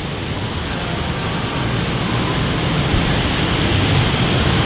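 Steady rushing noise of stormy weather, growing gradually louder.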